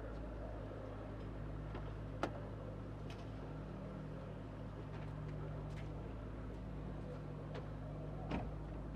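A steady low engine hum, like an engine idling, with a sharp knock about two seconds in and another near the end.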